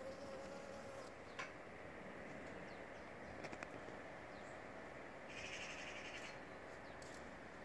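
Faint outdoor background with a bird calling once for about a second, starting about five seconds in. A couple of faint clicks come earlier.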